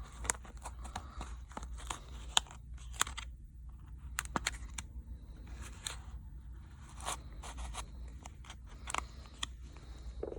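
A plastic opening pick scraping and clicking as it is slid around the edge of a smartphone's back cover, cutting through the adhesive to lift it off, in short irregular scratches and ticks.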